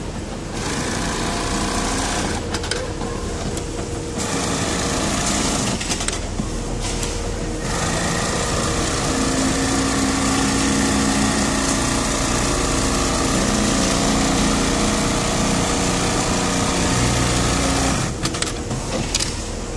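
Industrial programmable pattern sewing machine stitching through denim held in its template clamp. It runs with two brief lulls in the first eight seconds, then steadily for about ten seconds, and stops shortly before the end.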